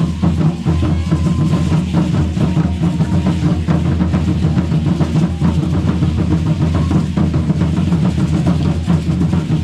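Ceremonial drumming for Indigenous dancers, a steady, fast beat of drum strikes that runs without a break.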